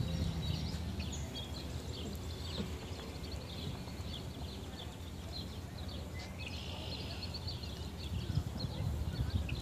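Small birds chirping repeatedly in the background over a steady low rumble.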